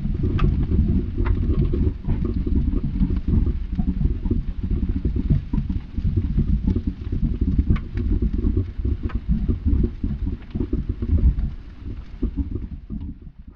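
A loud, rough low rumble with faint scattered clicks over it, fading out near the end.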